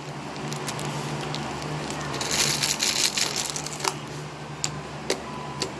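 Crinkling and crackling handling noises as slime-making materials are worked by hand, with a brighter rustle about two seconds in and a few sharp clicks near the end, over a steady low hum.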